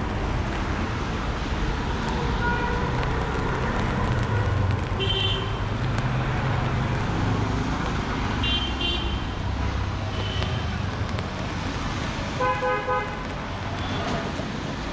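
Busy city street traffic with engines running, and vehicle horns honking several times in short toots, the loudest near the end.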